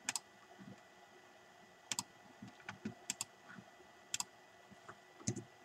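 Scattered faint, sharp clicks of a computer mouse and keyboard while text in a word processor is selected and formatted, about six in all, two of them quick pairs near the middle.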